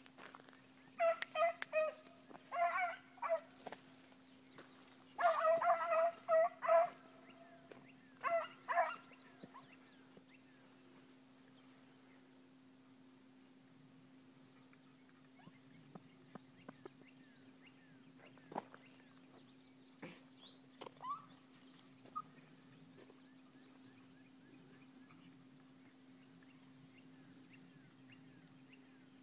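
Rabbit dogs baying on the trail in four bursts of quick, high yelps over the first nine seconds or so, then falling silent. A faint, steady high insect drone goes on throughout.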